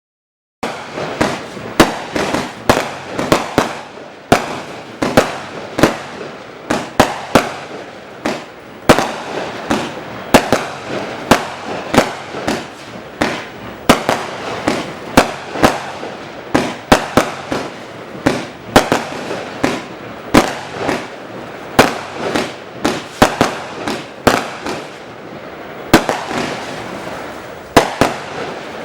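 A 0.8-inch, 256-shot compound fireworks cake firing, starting about half a second in: a rapid, continuous string of sharp shots and bursts, roughly one to two loud reports a second, with steady noise between them.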